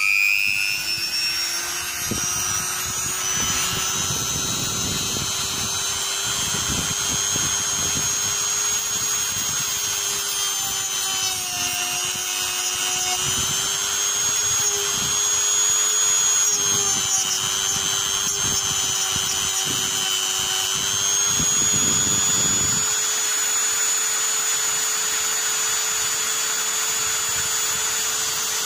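Mini rotary tool spinning a sanding disc with a steady high whine, reaching full speed in the first second. Its disc grinds the lump of melted plastic plugging a hole in the plastic bumper, sanding it flush, with rough scraping that comes and goes as the disc is pressed on and lifted.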